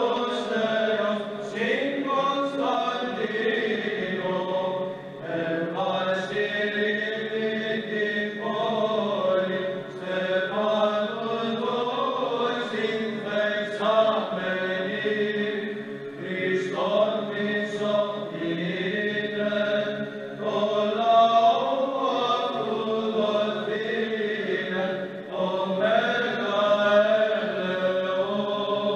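Male choir of Byzantine chanters singing unaccompanied Byzantine chant, the melody moving over a steady held low drone (the ison).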